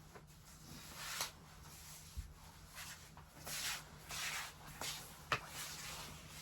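Objects being handled at close range: a few clicks and a low thump, short rustling swishes around the middle, and a sharp click about five seconds in.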